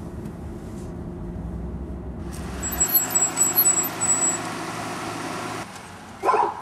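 Car engine and road noise inside a moving car, a steady low rumble. About halfway through it gives way to a louder outdoor hiss with a string of short, high chirps, which fades shortly before the end.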